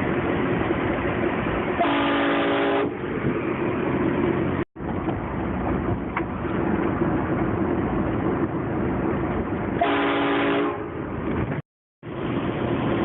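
Car-mounted train horn blasting twice, each blast a multi-note chord lasting about a second, over steady vehicle noise.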